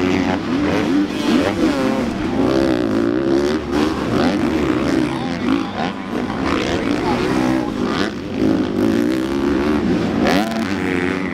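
Several motocross bikes racing past one after another, their engines revving up and down as the riders work the throttle, the rising and falling pitches overlapping.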